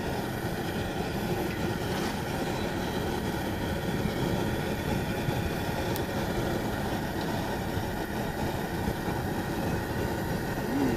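Battered fish fillets frying in a pot of hot oil over a propane burner: a steady sizzle that carries on throughout.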